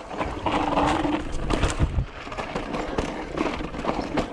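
Yeti SB6 full-suspension mountain bike rolling fast over rough granite: a steady low rumble of tyres and wind, broken by many irregular clattering knocks as the bike drops over rock ledges.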